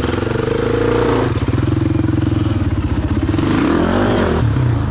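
Enduro motorcycle engine running close by as the rider works it through a muddy gully, with a quick rise and fall of revs a little past three seconds in.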